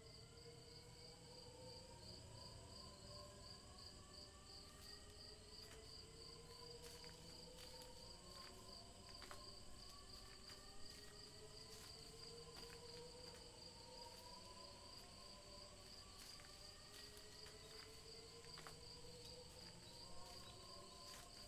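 Faint night ambience of crickets chirping in a steady pulsing trill, over slow gliding drone tones that rise and fall.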